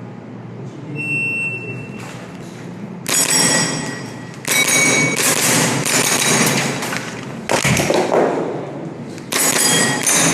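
Electronic shot-timer beep about a second in, then rapid strings of shots from a Tokyo Marui G17 Gen4 gas blowback airsoft pistol that run in several bursts to the end, with a metallic ringing over them.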